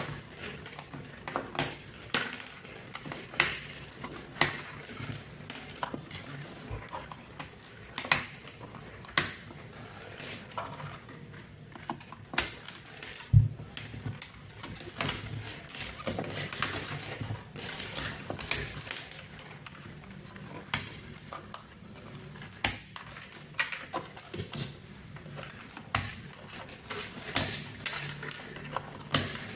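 Irregular sharp clicks and clatter of mechanical keyboard keycaps being handled, one or two clicks a second.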